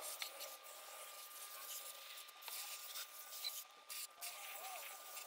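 Faint, steady hiss of water from a garden-hose nozzle on its shower setting, rinsing degreaser off a car engine.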